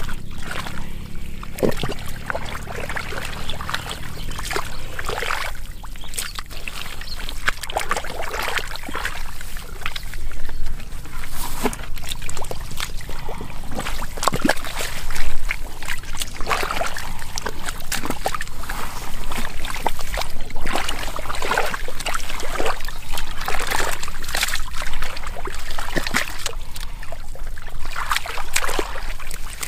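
Muddy water sloshing and splashing in irregular bursts, with a louder splash about halfway through, over a steady low hum.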